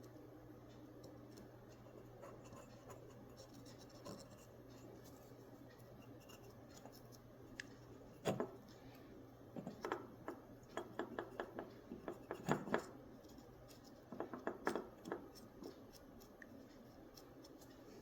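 Cotton swab scrubbing the plastic halo ring of a headlight: a run of short scratchy rubs and small clicks about halfway through, after several seconds of near quiet.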